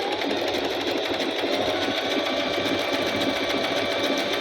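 Singer M3505 electric sewing machine running steadily at speed, stitching a zigzag rolled hem (saree picot) with the hemmer foot.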